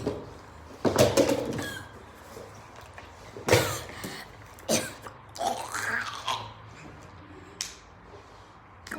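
A person coughing hard over and over, in about five loud fits a second or two apart.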